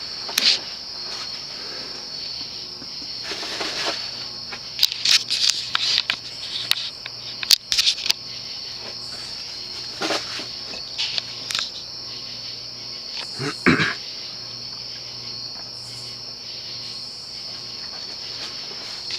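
Insects trilling steadily in the background, a continuous high-pitched chorus. There is a faint low hum under it and scattered clicks and rustles, the densest between about five and eight seconds in.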